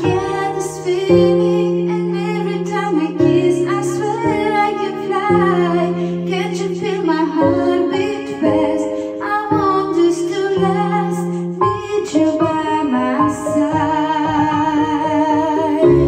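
Woman singing over a music backing track, her voice gliding over long held low chords that change every second or two.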